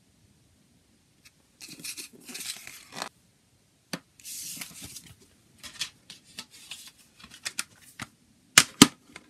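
Paper CD booklet being handled: rustling and sliding, then scattered light plastic clicks, and two loud sharp clacks near the end, typical of the booklet going back into a plastic jewel case and the case snapping shut.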